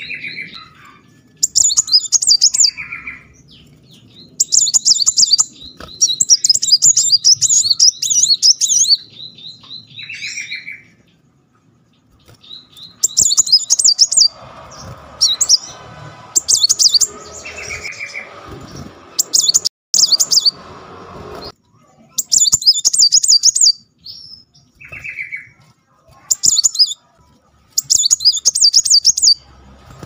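Caged male muncang sunbird singing: very high, rapid, tightly rolled trilling bursts of one to two seconds, repeated every few seconds, with short lower chirps between them.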